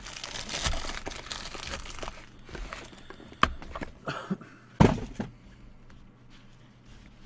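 Plastic trading-card packaging crinkling and tearing as it is handled and opened, followed by a few sharp clicks and knocks, the loudest about five seconds in.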